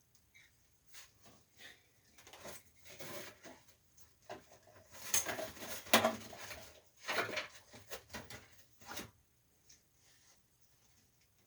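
Handling noises from work on a window air conditioner unit: scattered clicks, knocks and rustling of parts and tools. They are busiest in the middle and die away about two seconds before the end.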